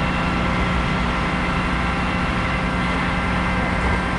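Street traffic with a heavy vehicle's engine running steadily close by, its hum holding an even pitch.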